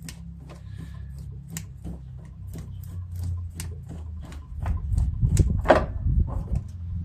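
Small metallic clicks and light knocks, a few a second, as the oil filter of a Husqvarna zero-turn mower is spun off by hand, over a low rumble of handling. It gets louder past the middle, with one sharper knock.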